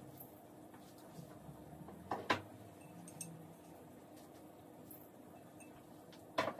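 A spoon clinks twice against a stainless steel mixing bowl as spices are added, once about two seconds in and again near the end, over a faint steady hum.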